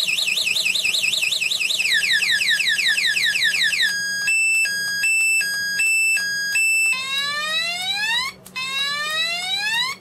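Motorcycle-style anti-theft alarm siren going off, pretty loud, cycling through its tones. It starts with a fast warble and rapid rising chirps, about seven a second. About four seconds in it switches to a two-tone hi-lo, and near the end it gives two long rising whoops.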